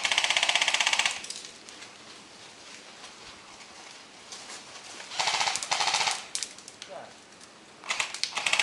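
Airsoft electric gun firing full-auto bursts, a rapid rattle of shots: one burst of about a second at the start and another about five seconds in.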